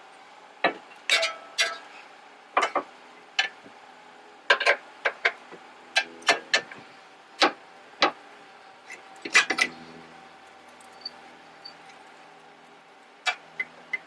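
Irregular metallic clanks and knocks, some in quick clusters of two or three, from tools and steel suspension parts being handled while a new lower control arm is fitted and its bolts are started.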